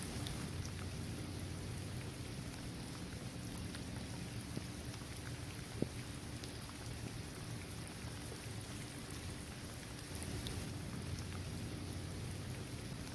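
Steady rain falling on a hard court, trees and grass: an even hiss with scattered drop ticks, and one sharper tick a little before the middle.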